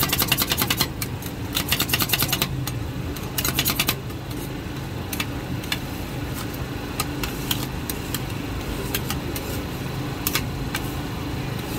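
Metal spatulas chopping and scraping ice cream mixture on a frozen steel pan: quick runs of clicking taps in the first four seconds, then slower, scattered taps and scrapes. A steady low mechanical hum runs underneath.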